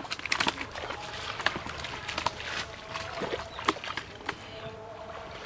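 Live fish thrashing in a shallow plastic basin of water, a string of sharp slaps and splashes at uneven intervals.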